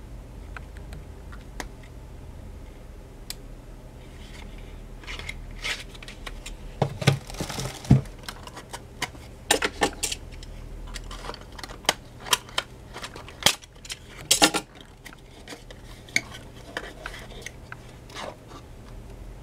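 Hands handling cosmetic packaging: irregular clicks and taps of a plastic cosmetic pen and its cap, with short rustles of a plastic bag and a cardboard product box being opened, the loudest around the middle.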